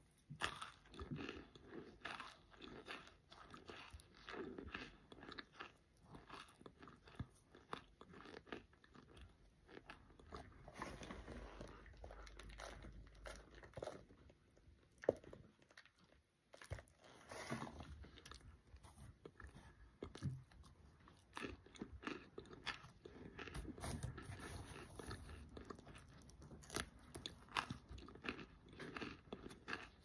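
Close-up chewing of microwave-baked cornstarch: repeated bites and a soft, airy crunch, with a short pause in the chewing about halfway through.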